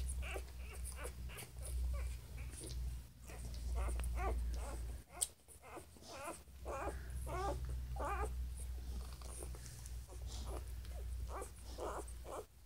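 Newborn puppies whimpering and squeaking in a string of short, wavering high cries, over a low rumble of phone handling noise. A single sharp click comes about five seconds in.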